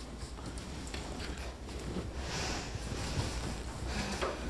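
A low, steady rumble with faint, scattered higher noise over it.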